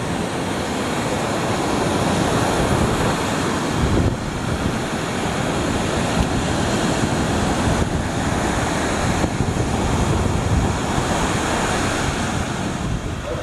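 Ocean surf breaking and washing on a gravel beach, a steady rush of waves, with wind buffeting the microphone in a low, uneven rumble.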